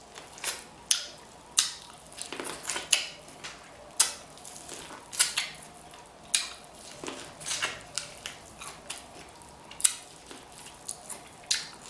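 Close-miked eating sounds: chewing, with wet mouth smacks and irregular sharp clicks about once a second.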